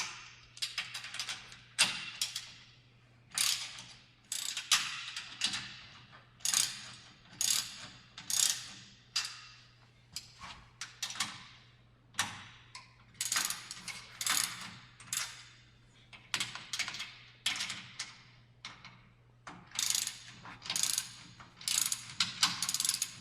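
Socket ratchet wrench clicking in repeated runs, one back-swing after another, as it loosens the pillow block bolts of a stair-climber's step chain assembly. A faint steady hum lies underneath.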